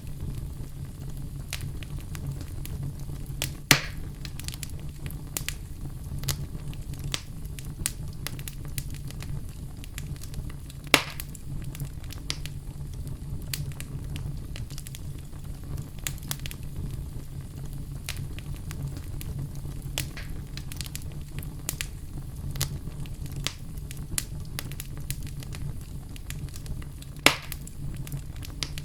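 Oak logs burning in an open fireplace, crackling with frequent small snaps over a steady low hum, and three louder pops spread through.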